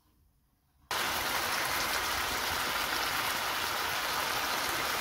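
Turkey strips and sliced champignon mushrooms sizzling in oil in a frying pan: a steady, even hiss that starts abruptly about a second in.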